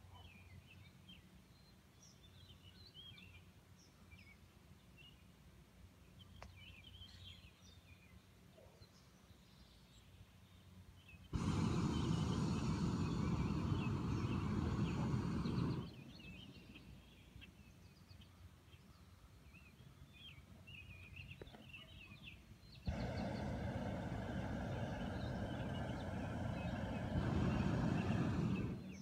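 Two long blasts of a hot-air balloon's propane burner, the first about four and a half seconds and the second about six seconds, each cutting in and out abruptly. Between the blasts, birds singing in the trees.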